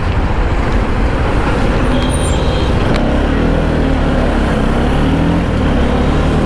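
Motorcycle riding in heavy truck traffic: a steady rumble of engine and wind noise, with wavering engine notes and the drone of trucks passing close alongside.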